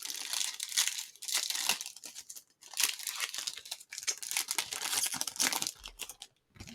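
Trading card pack wrapper being torn open and crinkled in the hands, in several bursts of rustling that stop near the end.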